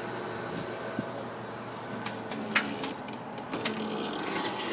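Forklift running steadily with a droning hum, broken by a few sharp metallic clanks, the loudest about two and a half seconds in.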